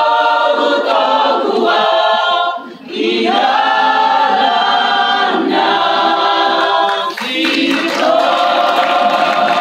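Mixed choir of men and women singing a church praise song in phrases, with short breaks about three and seven seconds in, then holding a long note near the end.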